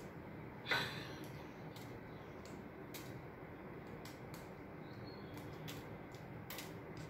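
Small plastic toy-figure parts being pressed out of their card and fitted together by hand: faint scattered clicks, with one louder short sound a little under a second in that falls in pitch.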